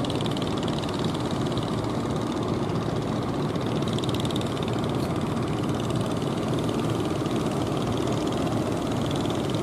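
Wooden fishing boat's engine running steadily as the boat motors in through the waves, over the wash of the sea.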